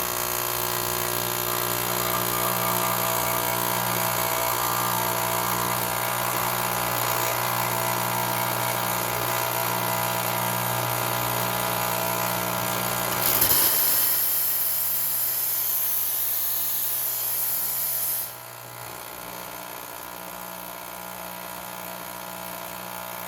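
Espresso machine's pump running steadily with a buzzing hum while pushing water through the portafilter, without bringing the brew pressure up into the gauge's green range. About 13 seconds in, a loud hiss starts and lasts about five seconds; after it a quieter hum carries on.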